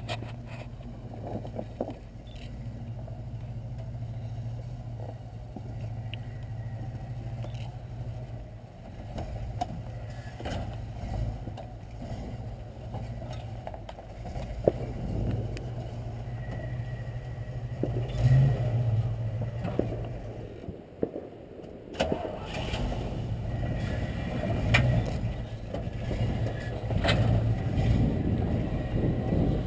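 Jeepster Commando 4x4's engine running at low revs as it crawls slowly over a pile of rocks, with scattered knocks and clicks. The engine sound gets fuller and louder past the middle as the vehicle comes close.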